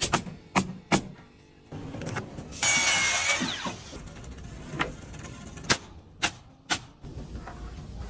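Porch-framing work: a string of sharp, separate knocks and shots, with a loud burst of hissing noise lasting about a second a few seconds in.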